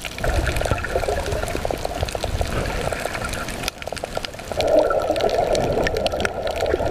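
Muffled underwater water noise picked up by a submerged camera: sloshing and bubbling water with a crackle of many small clicks. The sound jumps at a shot change a little under four seconds in.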